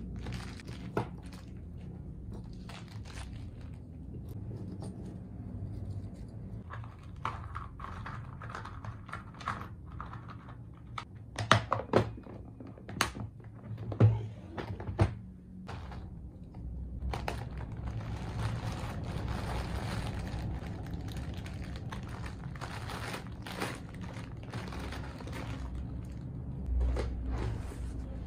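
Small metal bag rings and clasps and a clear plastic compartment box being handled: scattered light clicks and clinks, with a cluster of louder knocks and snaps about halfway through, as the box is closed and handled. A low steady hum runs underneath.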